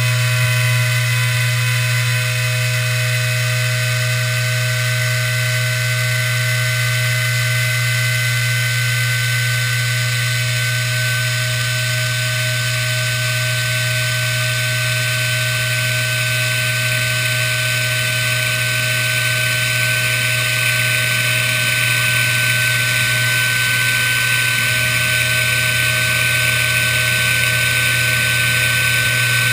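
Small CNC router's high-speed spindle with a fine end mill running with a steady whine as it cuts through a translucent sheet.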